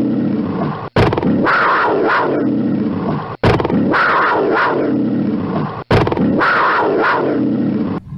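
Black panther growls from a sound-effect recording. The same growl of about two and a half seconds repeats back to back, with an abrupt cut before each repeat.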